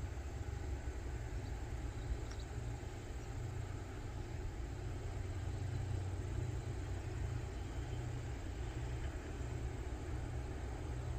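A steady low engine rumble with an even background hiss, unchanging throughout.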